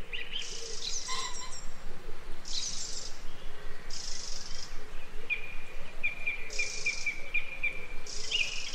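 Forest birdsong: several birds singing, with high chirping phrases repeating about every second and, in the second half, a run of quick, evenly spaced notes.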